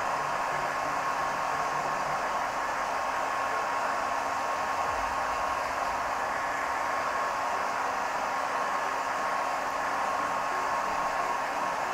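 A 2000-watt hair dryer running steadily, blowing onto artificial latex leaves: an even rush of air with a steady whine on top.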